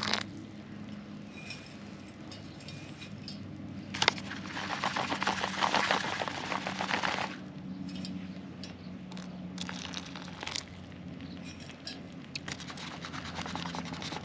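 Foil dehydrated-meal pouch being handled, crinkling and crackling in bursts, the longest for about three seconds near the middle after a sharp click, over a steady low hum.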